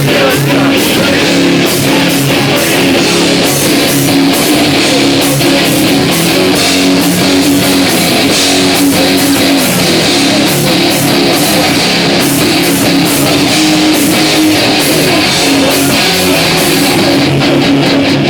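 Loud live rock band playing, led by strummed electric guitar.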